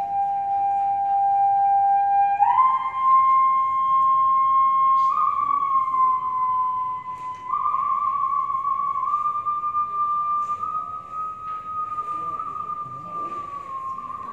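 Đàn bầu (Vietnamese monochord) playing a slow live melody of long held notes, gliding smoothly up and down between pitches.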